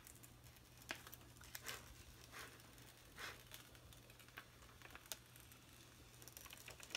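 Faint, scattered crinkling of a diamond painting canvas's plastic cover film and paper backing sheet as they are handled and lifted, a few soft rustles spread through otherwise near silence.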